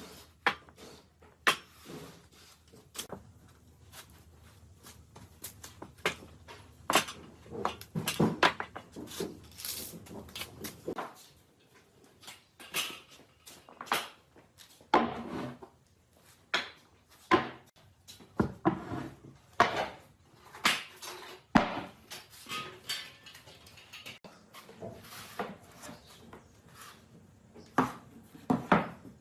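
Irregular knocks, taps and short scrapes of hard objects being handled and set down, dozens of them at uneven intervals, over a faint low hum that stops about eleven seconds in.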